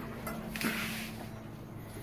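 Brief scraping rustle about half a second in, from hands handling a brass clock movement on the bench, followed by a few faint clicks, over a steady low hum.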